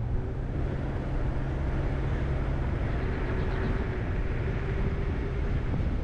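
A car driving along a city road, heard from inside the cabin: a steady rumble of engine and tyres on the road.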